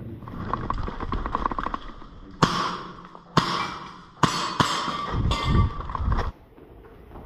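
Pistol shots fired at metal targets, about five sharp reports spread over some three seconds, each followed by a brief ringing tail as a plate is hit.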